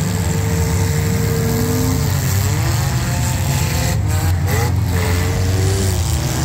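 Several compact demolition derby cars' engines running and revving together, loud and continuous, their pitch rising and falling.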